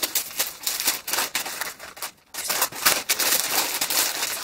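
Metallic gift-wrap paper crinkling and rustling as it is pulled open by hand, in dense crackly bursts with a short pause about two seconds in.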